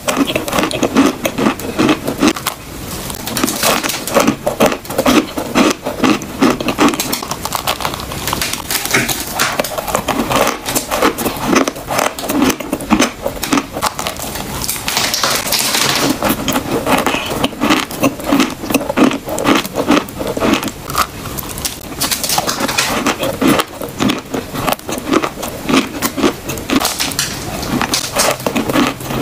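Close-up biting and chewing of a slab of chalk: a continuous dense crunching and crackling in a steady chewing rhythm.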